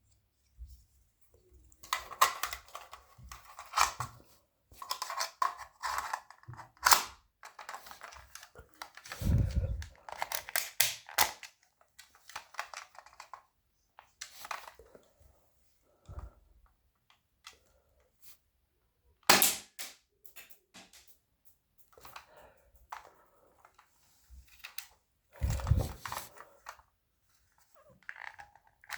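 Airsoft pistol shots: sharp snaps at irregular intervals, among clicking and handling noises, with a couple of dull thumps.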